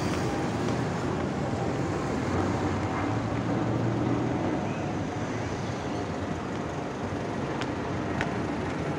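Steady city street noise: traffic and a low engine hum, with a couple of faint clicks near the end.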